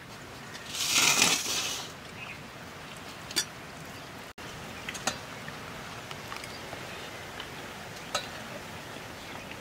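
A hand mixing rice and curry on a steel plate: soft rustling with a few small sharp clicks against the metal, and a short hissing rush about a second in.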